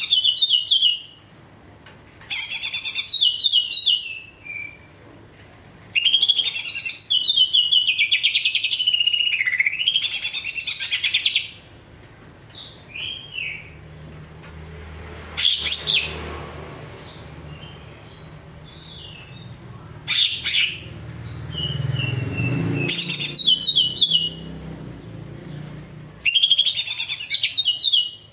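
Caged greater green leafbird (cucak ijo) singing: loud, rapid, chattering trilled phrases in a string of separate bursts with short pauses between them, one long phrase lasting about five seconds. A faint low rumble sits under the song in the middle.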